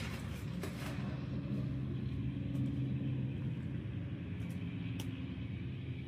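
Steady low machine hum with a few faint clicks.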